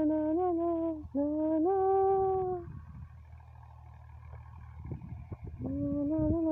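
Music: a melody of long held notes that steps up in pitch about a second in, breaks off for about three seconds, and comes back near the end. A steady low rumble runs underneath.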